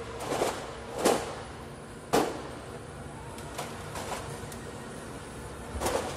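A series of short, sharp knocks and clacks, about six at irregular intervals, over a faint steady hum; the loudest come a little after one and two seconds in.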